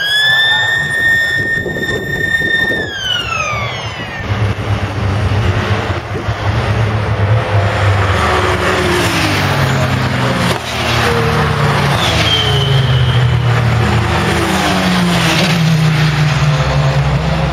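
Race car engines. In the first few seconds one car passes at high revs, its note rising, holding and then falling away. After that comes a steady low engine rumble with revs rising and falling.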